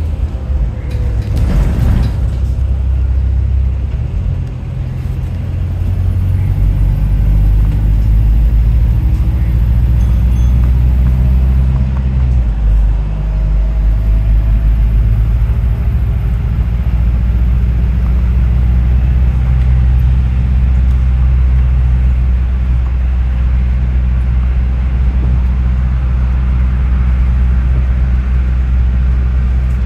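Stagecoach London bus 13067, a double-decker, driving, heard from inside on the upper deck: a steady low rumble with a faint whine that rises and falls with the bus's speed, the sound likened to an electric train. A brief rattle or clatter comes about a second or two in.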